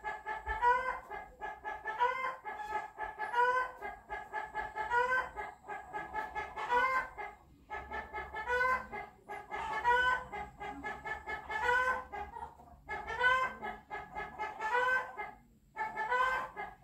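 A chicken clucking in repeated bouts about every one and a half seconds, each run of quick clucks ending in a longer rising note, with a few short breaks.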